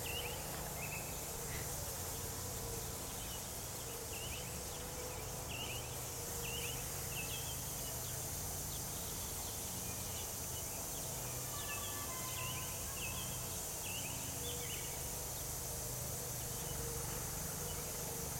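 Quiet outdoor background: a steady hiss with scattered clusters of brief, high chirps from small birds or insects.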